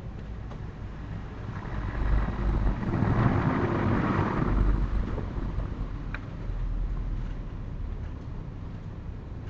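A vehicle passing by: a broad rumble that swells over a couple of seconds and fades, then a smaller swell. A single short click comes about six seconds in.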